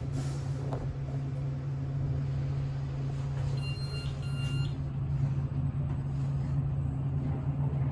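Otis traction elevator car travelling down, a steady low hum of the ride. About four seconds in, two short high electronic beeps sound one after the other.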